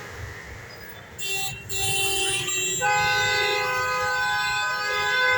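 A steady two-tone horn, sounding like a car's electric horn, held continuously. It is absent for the first few seconds, with only fainter short tones and clatter, then comes back about three seconds in and holds.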